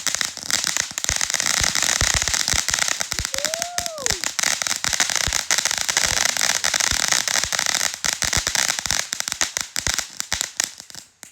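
A ground firework going off: a dense, continuous crackle of rapid small pops and reports over a steady hiss, loud throughout, cutting off abruptly right at the end.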